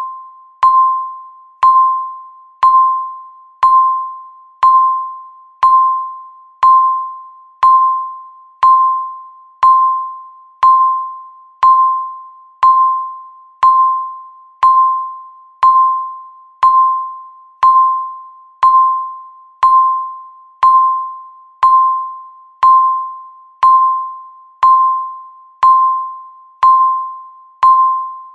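Countdown timer beep: one mid-pitched, bell-like electronic tone struck once a second, each dying away before the next.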